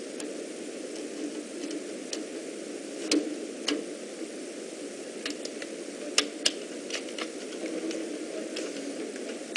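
Scattered light clicks and taps as a plastic circuit breaker and its wire are handled, a few of them sharper, about three and six seconds in, over a steady background hum.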